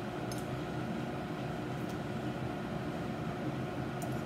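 Steady mechanical hum of a running kitchen appliance or fan, with a few faint spoon clicks.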